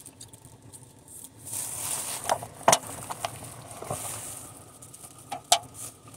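Close-up eating sounds from a burrito bowl: chewing and rustling, with a few sharp clicks and smacks, two of them near the end.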